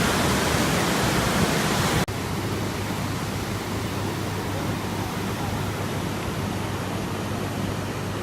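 Steady rushing noise that drops suddenly to a quieter hiss with a low hum underneath about two seconds in.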